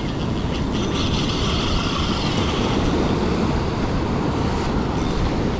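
Surf washing on the beach and wind buffeting the microphone, a steady rushing noise.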